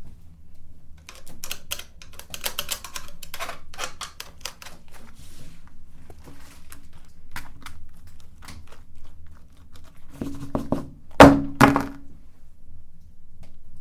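Electric meat grinder running with a steady low hum while grinding ice cream, with irregular clicks and crackles. Two loud knocks come close together near the end.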